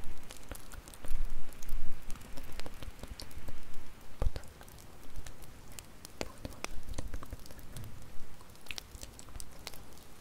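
Wood fire crackling, with irregular sharp pops and snaps over a low rumble of burning.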